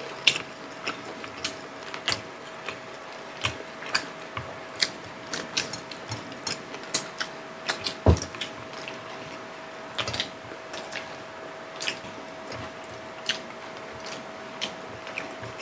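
Close-up eating sounds of two people eating fried milkfish and rice with their hands: chewing, mouth clicks and sharp little clicks of fingers at the food, with one louder knock about eight seconds in. A faint steady hum runs underneath.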